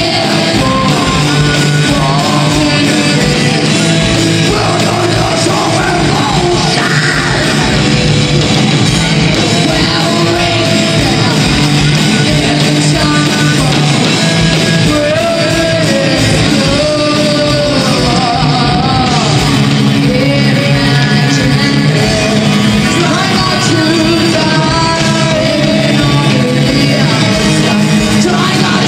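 Death metal band playing live: distorted electric guitars, bass and drums with fast, steady kick-drum beats, and a female vocalist singing over them.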